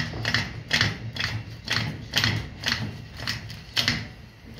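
A Jacobs R-755 radial engine cylinder being rocked back and forth as it is worked off its piston and hold-down studs, giving a regular series of metal clunks, about two a second. It is a stiff one to get off.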